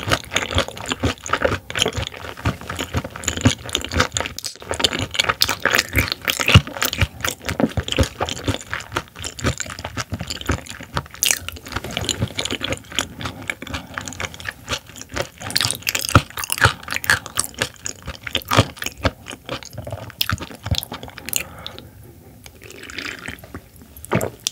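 Close-up wet chewing of raw silver pomfret sashimi: a dense run of quick clicks and squelches from the mouth, easing off for a moment near the end.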